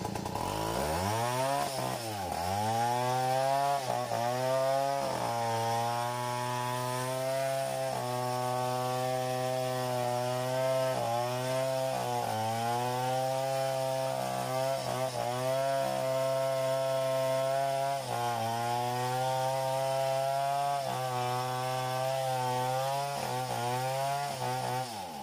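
Two-stroke chainsaw engine running at high revs, its pitch dipping briefly every second or so as the chain loads in the cut. It revs up just after the start and cuts off at the end.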